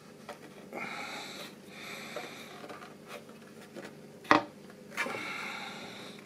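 Handling of a plastic model tank hull at a workbench, with soft breaths and a sharp plastic click a little past four seconds in, followed by a lighter knock and a short rustle.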